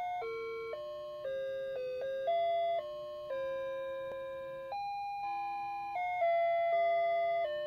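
Animated Santa's-workshop Christmas figure playing a tinny electronic melody, one clean note after another, each held about half a second before stepping to the next pitch.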